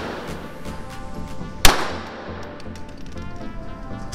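A single pistol shot about one and a half seconds in, echoing in an indoor shooting range, over background music.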